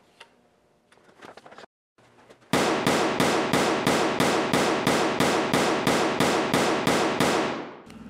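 A rapid, evenly spaced series of sharp knocks, about three a second, starting about two and a half seconds in and fading near the end.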